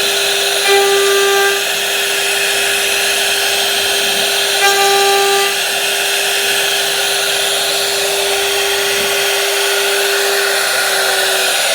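Electric power tool motor running steadily with a constant whine and hiss. It swells twice, for about a second each, with a brighter ringing edge added.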